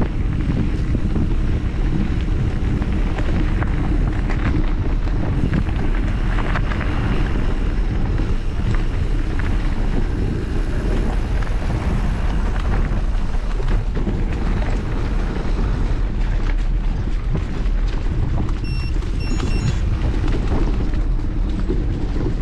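Wind rushing over the microphone of a camera riding on a mountain bike, over the steady rumble and rattle of the bike's knobby tyres rolling on a rough dirt track.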